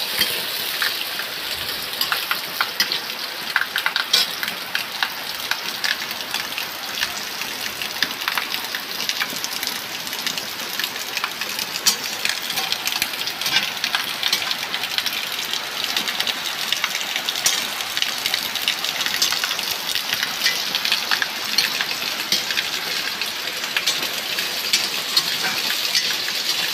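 Shakkarpara dough pieces deep-frying in hot oil in a kadhai: a steady, dense sizzle full of small crackles, which the cook puts down to the rain. Rain falling is mixed in with it.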